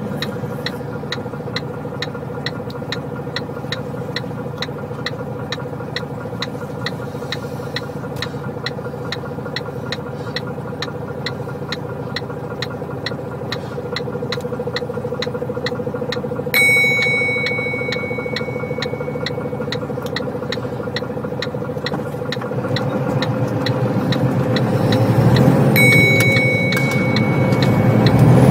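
Iveco Stralis 450 truck engine pulling steadily uphill, heard from inside the cab as a constant drone with a regular tick about twice a second. A sharp high tone sounds suddenly about two-thirds of the way in and again near the end, while the noise grows louder as oncoming lorries pass.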